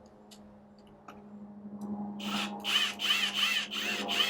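Crow cawing: a quick run of five or six harsh caws, growing louder in the second half.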